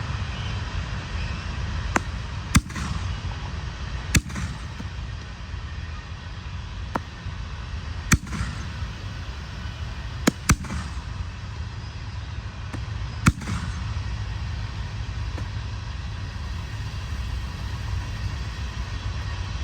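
Aerial firework shells from a six-shot 5-inch waterfall pack being fired: a string of sharp bangs spread over about fourteen seconds, two in quick succession near the middle, over a steady low rumble.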